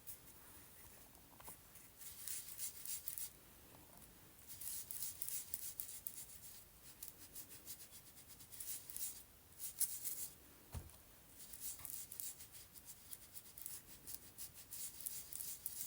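Distress ink being rubbed through a thin metal stencil onto a paper book page: quick, faint scratchy scrubbing strokes in several spells, with a single soft knock about two-thirds through.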